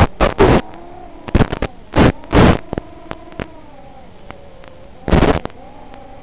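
FPV quadcopter's motors whining, the pitch drifting up and down with throttle, heard through the analog video link's audio. Several short, loud bursts of radio static break in as the signal drops out.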